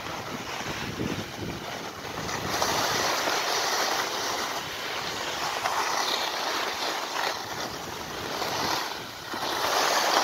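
Skis hissing and scraping over groomed, packed snow during a descent, mixed with wind rushing on the microphone. The steady wash swells and fades in slow waves.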